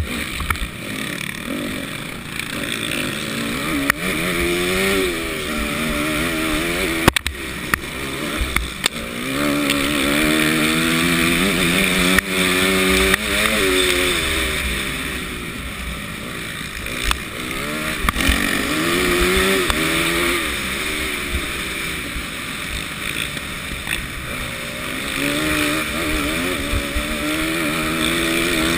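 Motocross bike engine revving up and dropping back over and over as the rider accelerates and shifts through the gears, with wind noise on the helmet camera and a few sharp knocks.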